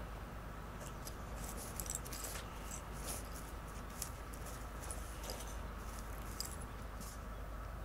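A cat raking dry dirt and gravel with its front paws to cover its droppings: a run of short, dry scratches, some in quick clusters.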